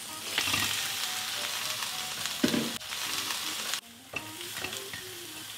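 Pig trotter pieces sizzling in hot sesame oil with ginger in a stainless steel wok as they are tipped in and stirred with a wooden spatula, with a short clunk about two and a half seconds in. The sizzle drops off abruptly a little before four seconds and goes on more quietly.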